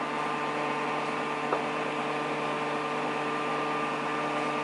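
Steady electrical or machine hum made of several steady tones over a low hiss, with a single faint click about a second and a half in.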